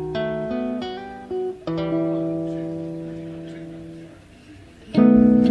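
String-band music of electric ukuleles and guitar. Plucked notes lead into a chord that rings and slowly fades for about two seconds, then a loud strummed chord comes in near the end.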